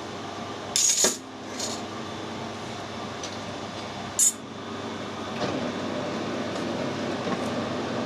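Two sharp metallic clinks of metal pieces knocking together, about a second in and again about four seconds in, over a steady workshop hum. From about five seconds a steady machine noise comes up and keeps running.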